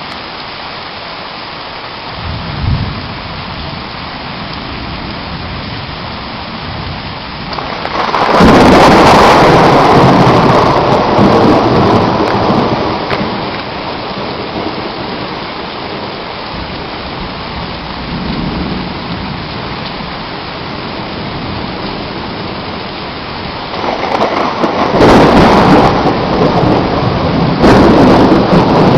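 Heavy rain pouring steadily, with thunder. A loud clap about eight seconds in rumbles away over several seconds, and another long, loud peal with sharp cracks builds near the end.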